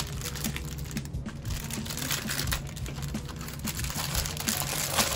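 Clear plastic wrap crinkling as it is pulled and peeled off a tablet case, with quick light clicks and taps of long fingernails on the plastic and case.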